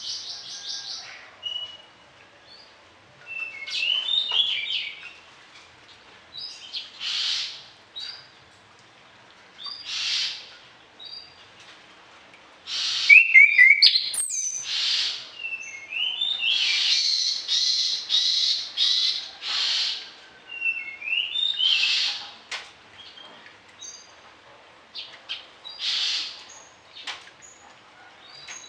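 Orange-headed thrush singing in short varied phrases of whistles, glides and rasping notes, which include mimicked calls of other birds, with brief pauses between them. The song grows louder and denser about halfway through.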